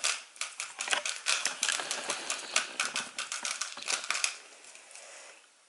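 GAN 356 i smart speedcube being turned quickly by hand to scramble it: a dense run of plastic clicks and clacks from its turning layers, stopping about four seconds in.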